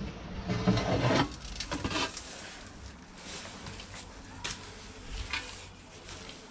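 Aluminium chequer-plate footwell panel scraping and rubbing as it is slid out of its opening, loudest in the first two seconds, then quieter rubbing with a few light knocks.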